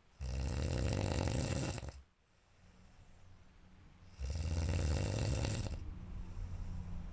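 A sleeping person snoring loudly: two long snores about four seconds apart, each lasting under two seconds, with softer breathing between them.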